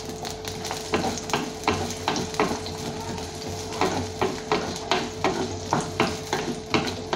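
Sliced onions and whole spices sizzling in hot oil in a black clay pot, stirred with a wooden spatula that scrapes and knocks against the pot about two to three times a second, starting about a second in.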